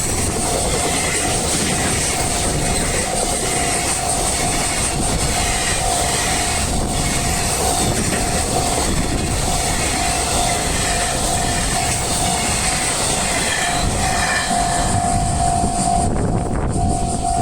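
A train runs past a Japanese railway level crossing with a steady rumble of wheels on the rails. The crossing's electronic warning bell keeps ringing in repeated pulses of one steady tone.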